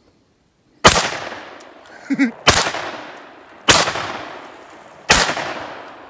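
Remington 11-48 16-gauge long-recoil semi-automatic shotgun fired four times in quick succession, about a second and a half apart, each loud report trailing off into an echo.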